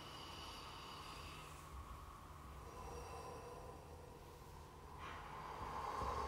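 Quiet, sparse contemporary chamber music with electronics. Faint high held tones fade out within the first two seconds, then a breathy, airy sound swells from about five seconds in.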